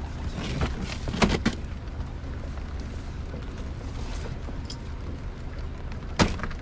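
Fish being handled at plastic coolers on a small boat: a couple of knocks about a second in and a sharper knock near the end, over a steady low rumble.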